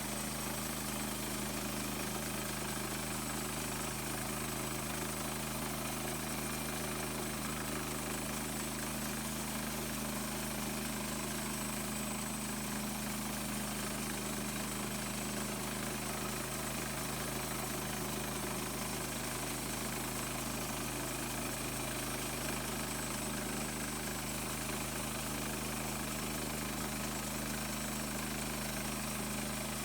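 The gasoline engine of an HM130 Max portable bandsaw sawmill running steadily at an even speed, with no change in pitch or level.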